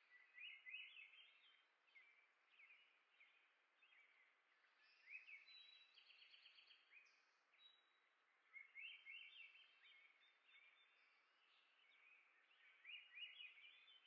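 Small songbirds chirping in short bursts of quick rising chirps, four bursts a few seconds apart, with a fast run of high ticks near the middle, over a faint steady hiss.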